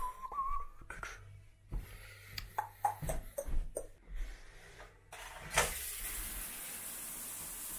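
A few clicks and knocks of handling and moving about, then about five and a half seconds in a shower is turned on and water sprays in a steady hiss.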